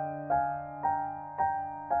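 Background piano music: notes struck about twice a second, each ringing and fading, over a held low note.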